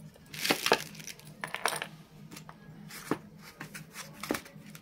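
Clicks and light knocks of a plastic battery charger and lithium-ion cell being handled and set down in a cardboard box, with a faint steady hum underneath.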